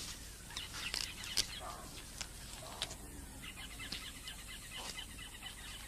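Faint bird chirps and twitters, with a few scattered clicks.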